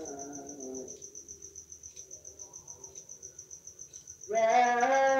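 A man's voice chanting the tarhim (pre-dawn praise and salawat before the Subuh call to prayer) over the mosque's loudspeaker ends a phrase about a second in. Crickets chirp in a steady fast pulse through the pause. The chant comes back loud on a long held note near the end.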